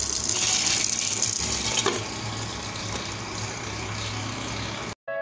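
Karahi sizzling and hissing on the stove while it is smoked with a hot coal (koila/dhungar method). A light clink about two seconds in as the pan is covered, after which the sizzling is quieter. It cuts off about five seconds in.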